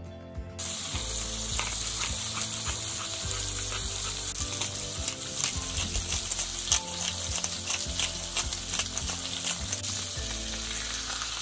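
A thick beef steak sizzling as it sears in a frying pan on a portable gas stove, the steady hiss dotted with many small pops of spitting fat. The sizzling cuts in about half a second in.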